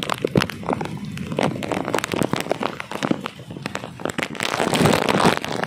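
Rain falling on a waterlogged street and the surfaces close by. Close drops make a dense patter of sharp ticks over a steady hiss.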